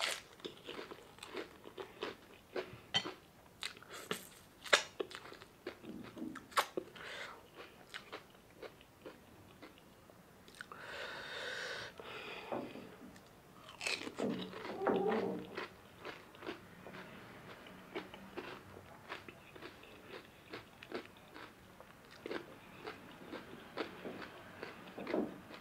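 Close-up crunching and chewing of panipuri: crisp fried puri shells cracking between the teeth in many sharp crunches, with wet chewing of the spicy water-filled puri in between.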